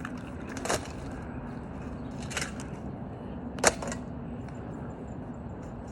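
Three sharp knocks on the smashed coffee maker, the last one the loudest.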